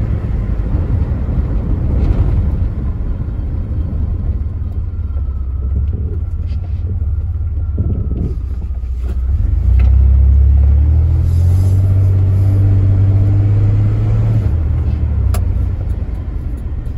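The 1992 GMC Sonoma pickup heard from inside the cab while driving: its 4.3-litre V6 and the road noise make a steady low rumble. About ten seconds in, the engine pulls harder under acceleration for a few seconds, then eases off.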